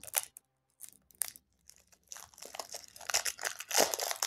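Plastic shrink-wrap being torn and peeled off a deck of game cards. A few sharp crackles come first, then continuous crinkling that grows louder toward the end.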